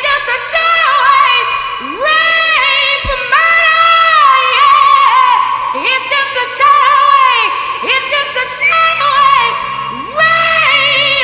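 Isolated female lead vocal belting long high notes with strong vibrato, each note scooping up into pitch, in a series of wailing phrases about a second long each.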